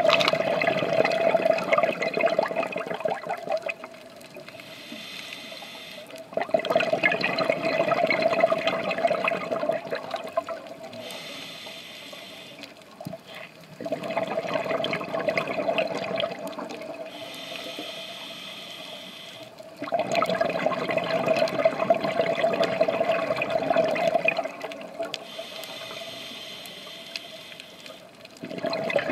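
Scuba diver breathing through a regulator underwater. A bubbling exhale of about four seconds alternates with a quieter hissing inhale, about one breath every seven seconds, with a new exhale starting near the end.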